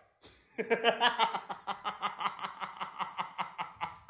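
A person laughing in a fast, even run of short snickers, about six a second, starting about half a second in and tailing off slightly.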